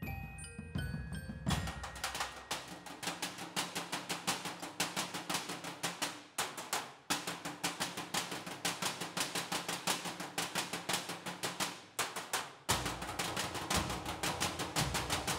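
Percussion ensemble playing galvanized metal trash cans with drumsticks in a fast, steady stream of sharp strikes. It follows a few ringing mallet-percussion notes at the start, and a deeper low beat joins near the end.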